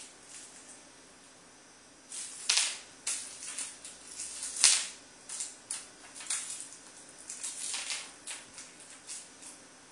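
A wrapped mint crinkling and clicking as a cat bats it about on a laminate floor: a string of short, sharp crackles starting about two seconds in, with two louder snaps, one near the third second and one near the fifth.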